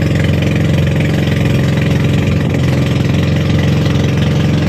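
A motorized bangka's engine running steadily under way on the boat's first sea trial; the pitch and loudness hold constant.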